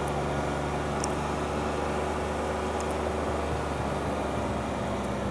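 A car's engine running steady, heard from inside the cabin, with faint clicks about a second in and again near the three-second mark.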